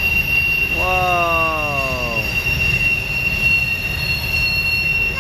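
Freight cars rolling past with a steady high-pitched wheel flange squeal and low rumble, the wheels grinding around the tight curve. About a second in, a brief wail slides down in pitch over a second and a half.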